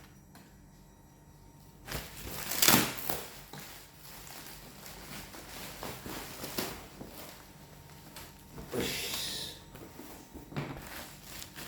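Rustling and handling noises from unpacking: paper and packaging being handled, with a louder rustle about two and a half seconds in, another about nine seconds in, and a few small knocks near the end.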